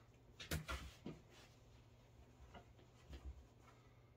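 Faint handling sounds of a quilting ruler and fabric being moved on a cutting mat: a few light knocks and soft rustles, the clearest about half a second and a second in, with fainter ones near the end.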